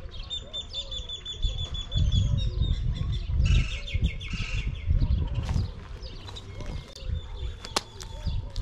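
Birds chirping, with a high trill in the first couple of seconds and a burst of quick chirps near the middle, over an uneven low rumble.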